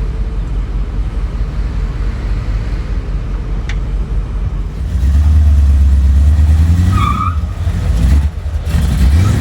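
Land Rover Discovery II engine running off-road, getting markedly louder about halfway through as it takes more throttle, with a short high-pitched sound about two-thirds of the way in.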